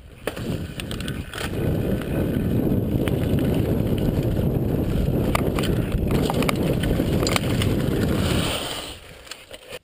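Mountain bike riding fast down a leaf-covered dirt trail: a steady low rumble of tyre noise and wind buffeting the chest-mounted camera's microphone, with scattered clicks and rattles from the bike. The rumble builds in the first second and dies away near the end.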